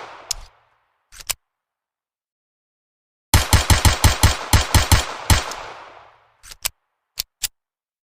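Hammerless handgun sound effect: a rapid string of about ten shots about a second and a half after a pair of short clicks, ending in a fading echo and followed by four short clicks.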